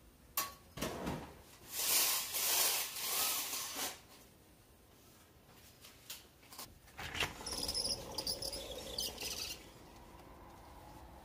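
A sharp click, then a couple of seconds of loud rustling, sliding household noise. Later, high thin cricket chirping comes in for about two seconds, mixed with some rattling.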